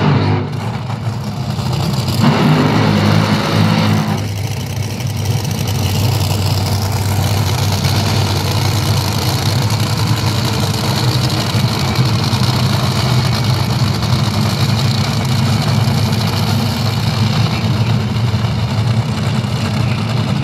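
Top Fuel dragsters' supercharged nitromethane V8 engines. They rev hard for the first few seconds, surging at about two seconds in, then drop at about four seconds in to a steady, loud idle.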